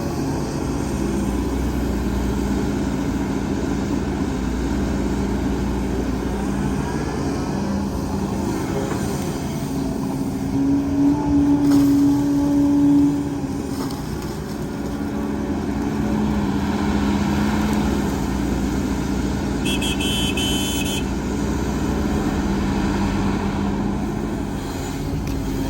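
Heavy diesel earthmoving machinery running steadily, its engine note rising and growing louder under load for a couple of seconds about 11 seconds in. A brief high tone sounds about 20 seconds in.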